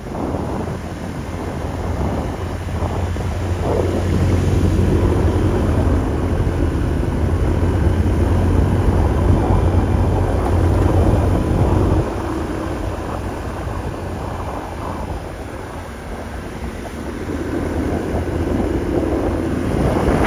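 Wind buffeting the microphone over a motor scooter riding along; the rush builds over the first few seconds, drops off about twelve seconds in, and rises again near the end.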